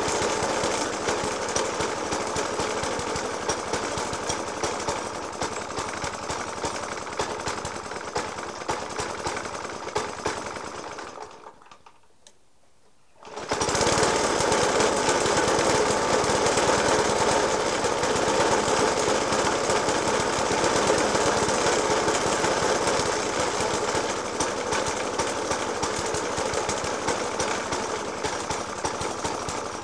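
Suffolk Punch 30S petrol lawnmower engine idling roughly with heavy banging, a fault that a new spark plug, a decoke and a carburettor clean have not cured. The sound breaks off for about two seconds near the middle, then comes back just as before.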